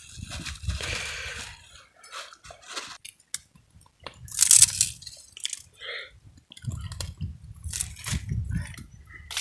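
Dry rice poured from a plastic bag into a pot of boiling water, with the bag crinkling and rustling in irregular bursts, the loudest about halfway through. A low rumble sits underneath at the start and again near the end.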